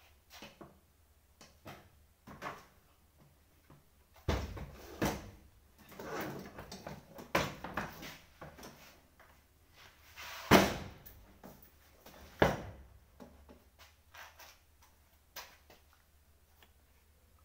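Office chair parts being handled: scattered knocks and clatters as a chair's metal frame and wooden seat base are lifted, turned and bumped against other chairs, busiest through the middle, with one sharp knock a little past the middle the loudest.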